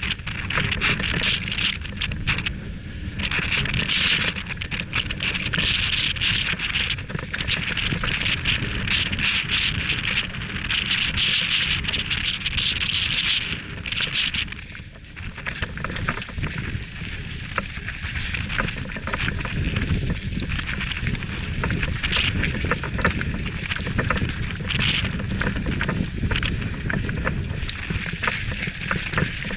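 Mountain bike rolling fast downhill over loose gravel and rocks: a dense clatter of stones under the tyres and the bike rattling, with wind buffeting the microphone as a heavy rumble.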